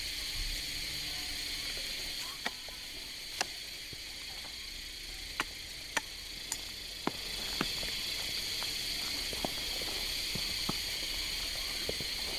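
A steady high-pitched hiss or drone, like an insect chorus, with a dozen or so short, sharp clicks or chirps scattered irregularly through it.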